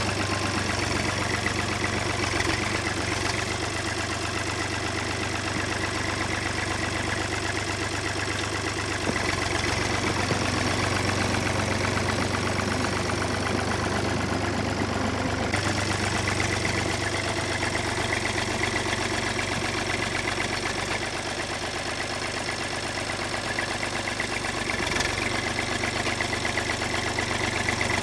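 An engine running steadily at a constant speed, with a few faint knocks over it.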